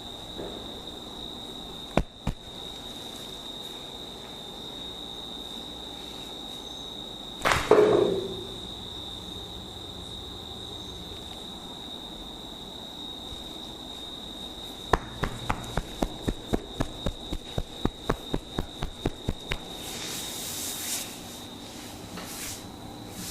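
Head massage by hand: a single sharp click, a loud slap-like burst about a third of the way in, then a rapid run of about twenty sharp snapping clicks, roughly five a second, followed by a brief rubbing hiss. A steady high-pitched whine runs underneath.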